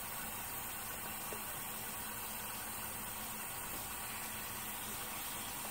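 Tap water running steadily into a kitchen sink, a constant even rush.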